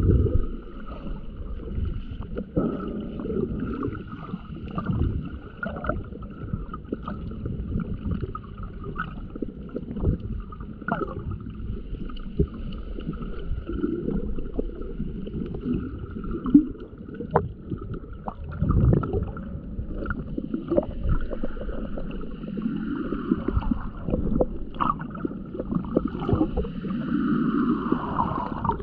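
Muffled water movement heard underwater through a camera's waterproof housing: low sloshing and gurgling, with scattered sharp clicks.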